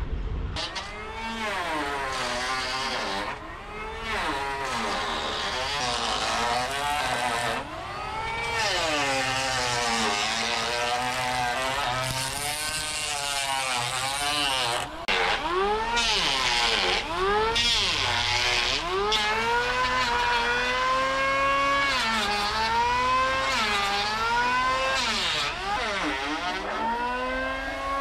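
Electric hand planer cutting along a thick wooden plank, its motor whine dipping in pitch as it bites into the wood and rising again between strokes, over and over.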